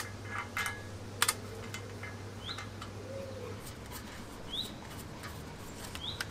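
A small bird chirping, short rising notes about every two seconds, with a few sharp metallic clicks of steel parts being handled, the loudest right at the start.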